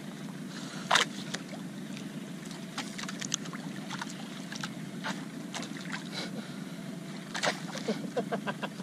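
A small outrigger boat's engine running steadily. Scattered sharp clicks and knocks sound over it, the loudest about a second in and again around seven and a half seconds, with a quick run of them near the end.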